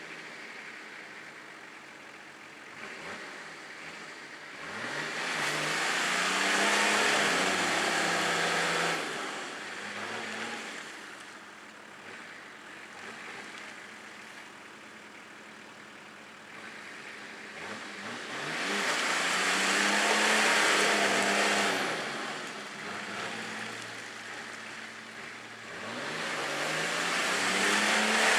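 Off-road 4x4's engine revving up hard three times, about five seconds in, about eighteen seconds in and near the end. Each rise in pitch leads into a few seconds of loud running under load, and the engine drops back to a quieter note in between.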